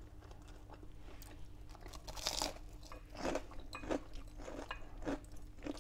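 Mouth-close crunching and chewing of an oven-baked breaded nugget with a crisp panko-and-crisps coating: a few irregular crisp crunches, the loudest about two seconds in.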